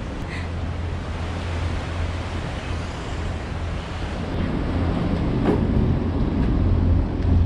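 A steady low mechanical drone, like a distant engine or machinery, that grows louder about four seconds in.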